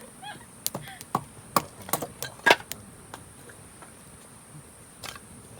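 Scrap cedar wood crackling and popping in a campfire: sharp pops about every half second for the first three seconds, then quieter, with one more pop near the end.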